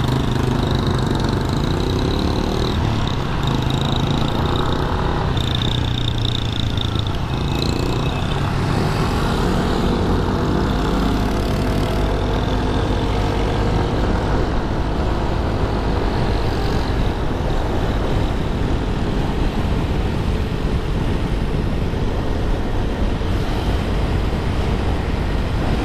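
Honda SH150i scooter's single-cylinder four-stroke engine running as it rides through city traffic, mixed with the sound of surrounding cars: a steady, unbroken rumble.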